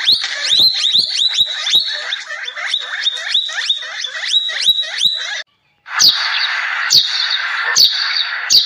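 Rapid high-pitched chirping calls with sharp clicks, which stop abruptly about five seconds in. After a half-second gap, a flock of Eurasian tree sparrows chirps busily, with a sharp click about once a second.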